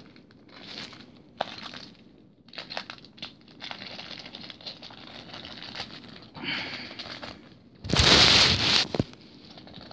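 Plastic packaging crinkling and rustling in irregular bursts as the model is handled, with one much louder rustle lasting about a second near the end.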